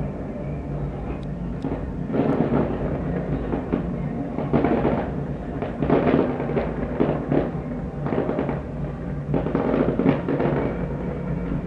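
Fireworks display with aerial shells bursting in quick succession, bang after bang, over steady music playing under them.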